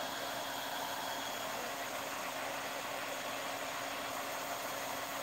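Truck crane's engine running steadily, an even hum and hiss with no change in speed.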